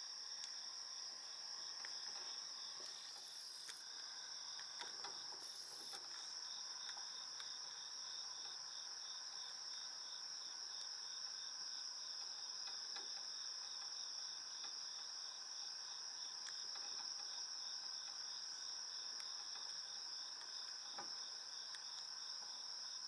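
Night insect chorus of crickets: a steady high trill with a rapid, regular chirping beneath it. A few faint rustles and scrapes come a few seconds in.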